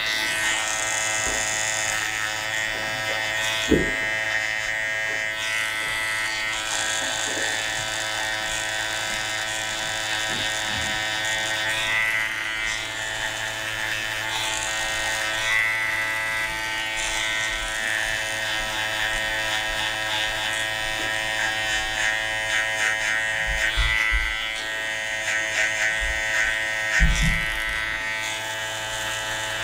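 Cordless electric hair clippers running with a steady motor hum, the blade buzzing as it cuts close hair around the shaved design lines. There are a couple of soft knocks, a few seconds in and near the end.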